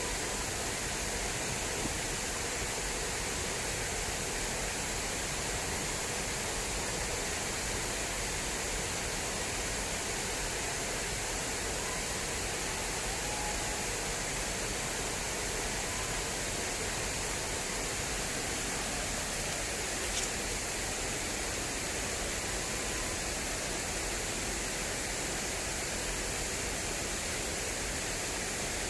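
Fast-flowing water rushing steadily along an irrigation channel, an even unbroken noise. A single brief tick about two-thirds of the way through.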